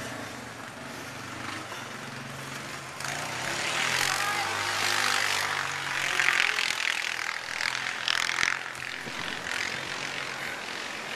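A motor vehicle passing on a snowy street: a low engine hum with tyre and wind hiss that swells over a few seconds and then fades.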